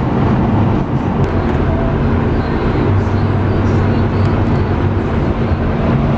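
Steady drone of a rented truck's engine and tyres at freeway speed, heard from inside the cab: a constant low hum over road noise.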